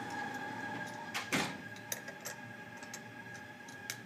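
Light clicks and knocks of stainless-steel pump parts being handled and fitted together as the front cover is set onto the pump housing, the loudest pair about a second in, with smaller ticks after.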